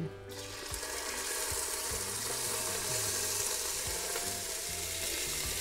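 Cubes of raw beef sizzling as they fry in hot lard with cracklings (Griebenschmalz) in a cast-iron Dutch oven: a steady hiss that starts just after the first pieces drop in and swells a little as more go in.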